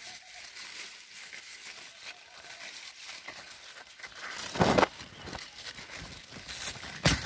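Cucumber vine leaves and stems rustling and crinkling as a hand reaches through them to pick cucumbers, with a louder rustle about two-thirds of the way in and another near the end.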